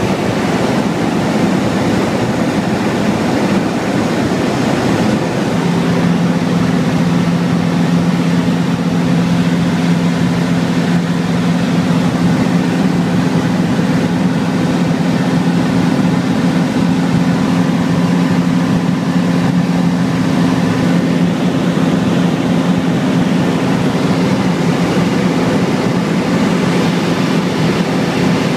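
Cabin noise of a Zenair Zodiac 601XL-B light aircraft in cruise flight: its Rotax 912ULS four-cylinder four-stroke engine and propeller running steadily at about 5,000 rpm, under a constant rush of air noise. The engine's hum shifts a little in tone about five seconds in.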